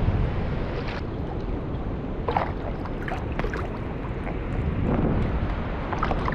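Wind buffeting the microphone: a steady rough rumble over open water, with a few faint short high sounds about two and three seconds in.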